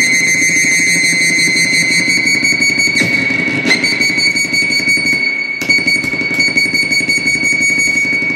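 Homemade noise synthesizer built into a plastic skull, playing a steady high electronic whine over a fast pulsing buzz as its knobs are turned, with sharp clicks about three seconds in, again just after, and once more past the middle.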